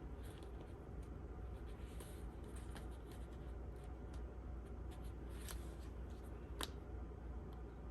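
Soft rustling and scraping with a few light clicks, two of them sharper in the second half, as a replacement ear pad is pressed and worked onto a Beats headphone ear cup, over a low steady hum.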